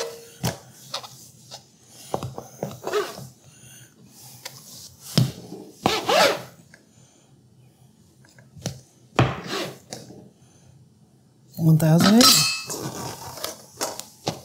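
Scattered knocks and scrapes of a stainless steel bench scraper cutting through bread dough against a plastic cutting board, with clinks from a stainless steel mixing bowl on a kitchen scale.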